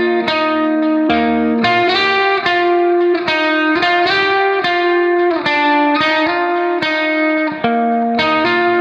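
Background music: guitar playing a melody over chords, with sharp plucked note onsets.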